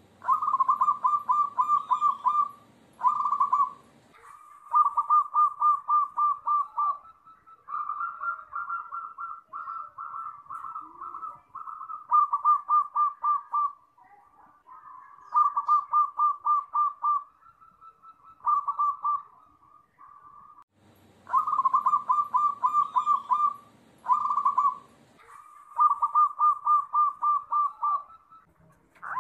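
Zebra doves (perkutut) cooing in phrase after phrase of rapid staccato notes, each phrase lasting a second or two. Some phrases overlap, as calls from several birds are layered together into a lure recording (pancingan) meant to set other perkutut calling.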